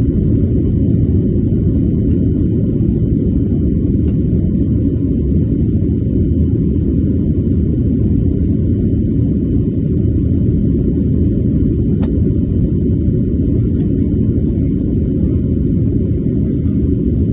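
Steady low rumble of a Boeing 737-900's CFM56-7B jet engines and the airflow, heard inside the passenger cabin, with one faint click about twelve seconds in.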